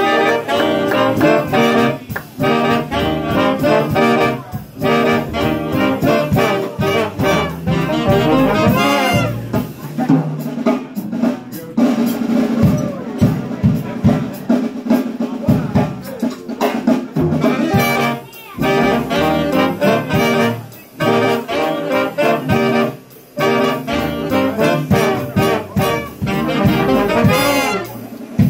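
Live jazz big band playing, with brass and saxophones to the fore.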